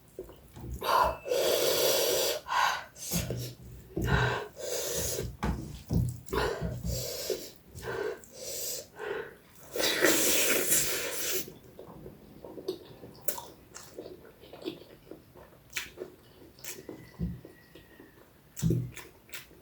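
Close-miked eating: long, noisy slurps of noodles and soup, then from about twelve seconds in, short wet chewing smacks and clicks.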